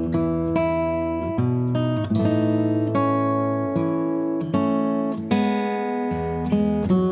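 Background music: an acoustic guitar picking and strumming chords, with a new note or chord about every second.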